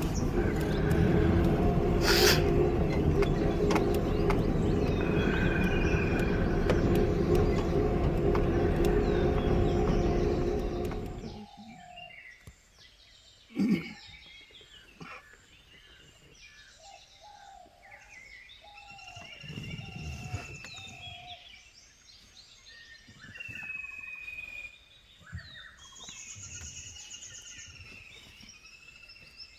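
Safari jeep driving along a dirt forest track, its engine and road noise steady until they stop abruptly about eleven seconds in. Then wild birds chirping and whistling in the forest, with one sharp click shortly after the stop.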